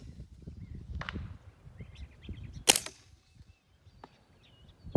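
A suppressed 9mm AR pistol firing a single shot about two and a half seconds in, the loudest sound, with a fainter sharp crack about a second in. Birds chirp faintly in between.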